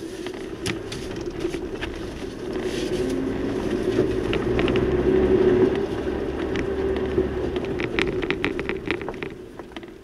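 A vehicle engine running as it drives along an unpaved forest road, with many sharp clicks and crackles from stones and grit under the tyres. It grows louder toward the middle and fades near the end.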